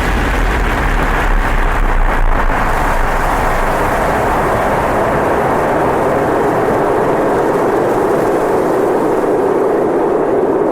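Loud, steady rushing rumble of a designed cinematic sound effect, the long tail after a boom. Its deep bass fades over the first few seconds, leaving an even mid-pitched roar with no separate hits.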